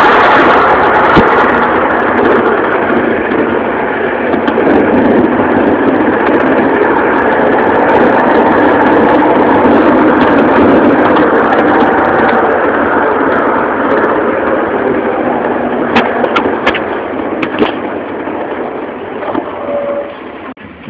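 Tractor diesel engine running steadily under way, heard loud from inside the cab. A few sharp clicks come from about three quarters of the way through, and the engine sound drops off near the end.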